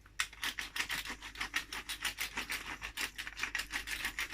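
Pepper mill being twisted by hand, grinding in a rapid run of clicks at about six a second.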